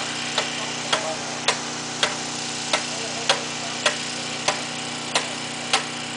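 Construction work: about ten sharp, evenly spaced knocks, a little under two a second, over the steady drone of an idling engine.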